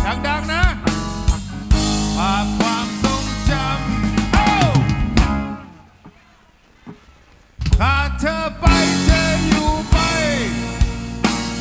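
Live rock band playing: drum kit, keyboard and a male lead voice singing. About halfway through the band drops out for a couple of seconds, then comes back in together.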